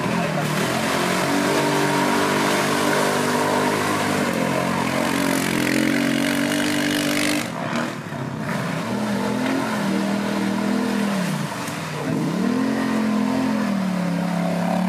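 A racing quad bike's (ATV's) engine revving hard. It holds high revs at first, drops briefly about halfway through, then rises and falls twice as the throttle is worked.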